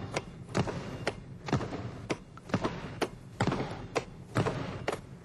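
A basketball thrown down hard against the floor again and again and caught, a quick run of sharp bounces, about two a second.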